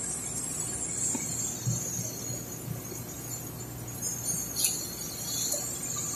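A few short clicks and taps of plastic parts and cord as a corded electric drill's trigger switch and wiring are fitted back into the housing by hand, over a steady hiss and low hum.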